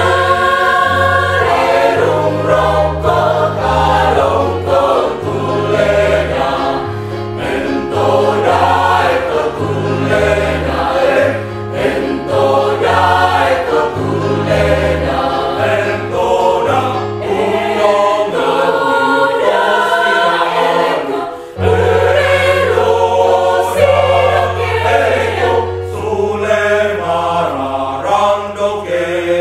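Mixed choir of women and men singing a piece under a conductor, with steady low bass notes underneath that change every second or so. About three quarters of the way in, the sound dips briefly, then a long low note is held beneath the voices.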